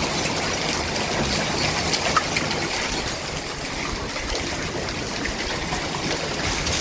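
Hailstorm: a steady rush of heavy rain with many sharp clicks of hailstones striking, some stones as big as ping pong balls.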